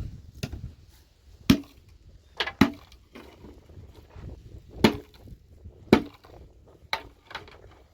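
A series of sharp knocks, about eight irregular blows spread over several seconds, over a low rumble of wind on the microphone.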